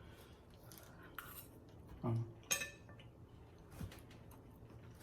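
Cutlery clinking against a plate a few times, the loudest a short ringing clink about two and a half seconds in.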